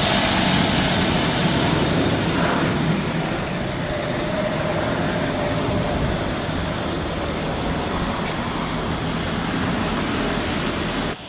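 Jet engine noise from an Airbus A350's Rolls-Royce Trent XWB turbofans as the airliner climbs away overhead: a steady rushing noise that cuts off abruptly near the end.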